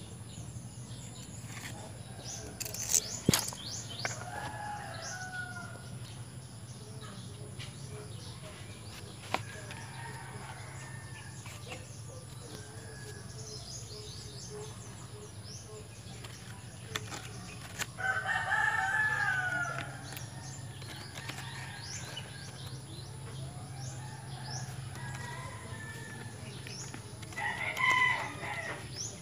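Rooster crowing: one long crow about two-thirds of the way through and a shorter one near the end, over a steady low hum. A few sharp rustles of coconut fronds being handled come near the start.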